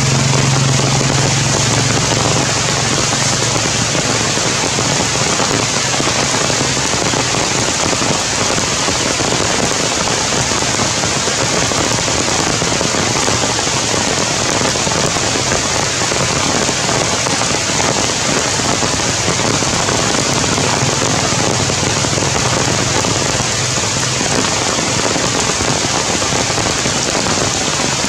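Heavy rain falling steadily, a dense even hiss, with a low hum underneath that fades out after the first several seconds.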